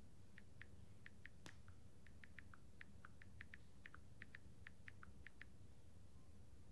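Faint clicks from a phone's on-screen keyboard as a text message is typed: a quick, uneven run of about two dozen short ticks, some a little lower than others, stopping about five and a half seconds in.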